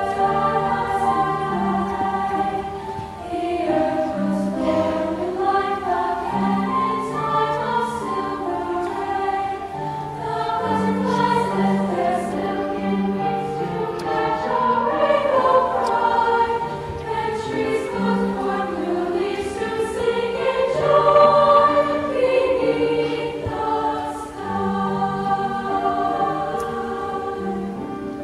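A girls' school choir singing a choral piece in harmony, in held notes that change from phrase to phrase, swelling to its loudest about three quarters of the way through.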